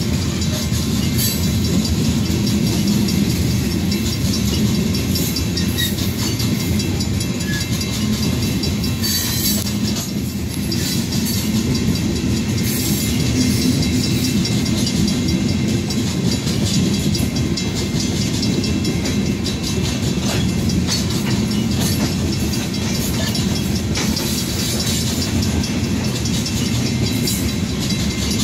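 Coal train's loaded open-top cars rolling steadily past, a continuous rumble of wheels on rails with clickety-clack from the rail joints.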